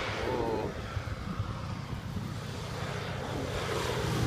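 Single-engine floatplane flying in low overhead, its propeller engine droning steadily and growing louder near the end as it closes in.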